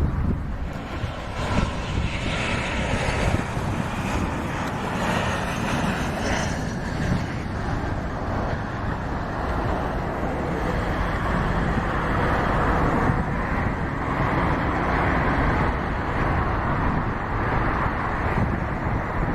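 Jet airliner engines running: a steady, loud rushing noise, with a faint whine a couple of seconds in.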